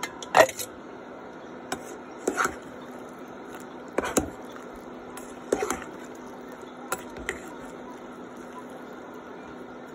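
Metal spoon knocking and scraping against a stainless-steel pan while stirring sliced bottle gourd (upo) and pork, in short irregular strokes every second or so, the loudest about half a second in. A steady low hum runs underneath.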